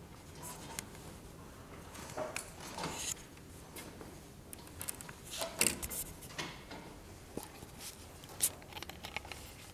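Scattered knocks, clicks and rustling of people getting up and moving about in a lecture room, with a few faint, indistinct voices.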